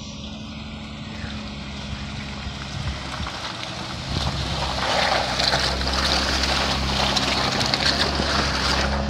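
Jeep Wrangler's engine running as it drives past slowly on a wet, muddy dirt trail. From about four seconds in, a louder hiss of tyres working through the mud joins it.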